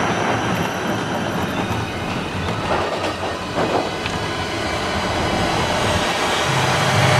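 Expedition Everest roller coaster train climbing the lift hill, with a steady rattling clatter of the cars on the track.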